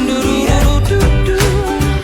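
Background pop music with a steady beat and guitar.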